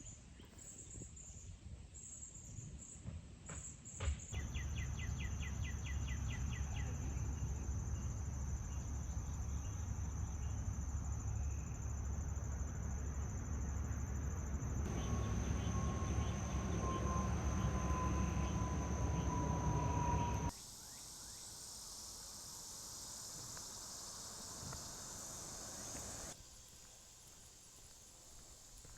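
Insects making a steady high-pitched drone, over a heavy low rumble through the middle part; the background changes abruptly several times.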